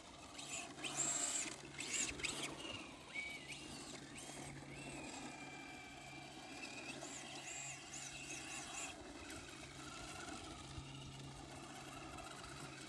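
Traxxas Slash 4x4 RC truck's electric motor and drivetrain whining and squealing in bursts as the throttle is worked, loudest in the first couple of seconds, then a thinner gliding whine. The truck's slipper clutch, which the owner says stripped at the end of the run, is the likely cause of the squeal.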